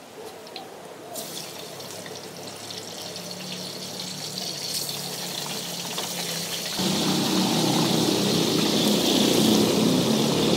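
Hot oil in a wok sizzling as pieces of marinated tofu go in to deep-fry. The sizzle builds gradually, then jumps much louder about seven seconds in as a batch of pieces is dropped in and the oil bubbles hard.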